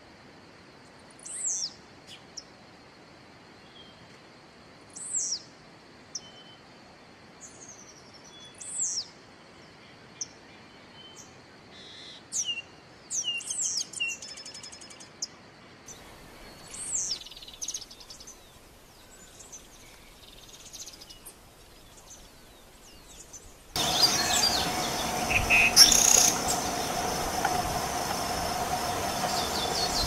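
Black-and-white seedeater calling: short, high, downward-sliding notes every few seconds, then a quicker run of song notes. About two-thirds of the way in, a louder steady buzzing background starts abruptly, with further chirps over it.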